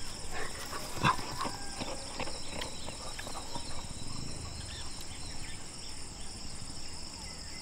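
Insects trilling steadily at a high pitch, with scattered light taps and clicks and one sharper knock about a second in.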